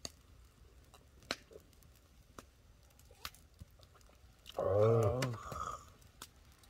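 Scattered light clicks and taps, and about four and a half seconds in a man's drawn-out wordless vocal sound lasting about a second.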